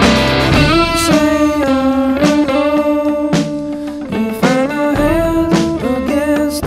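Background music: a blues-rock tune led by guitar, with long bending notes over a steady beat.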